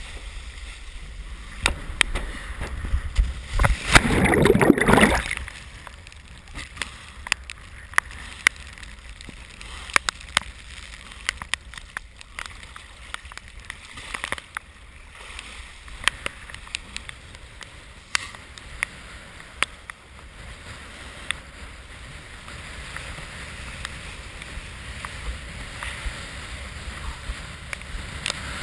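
Water rushing and splashing against a windsurf board under way, with wind buffeting a head-mounted GoPro in its housing and scattered sharp clicks and knocks. A louder rush of wind and spray comes about four seconds in and lasts over a second.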